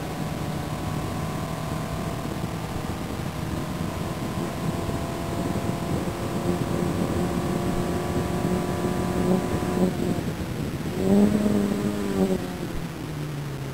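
Open-wheel single-seater race car's engine heard onboard, pulling hard with its note climbing slowly for about ten seconds. It then changes abruptly, gives a brief louder surge that rises and falls in pitch, and settles to a lower steady note near the end.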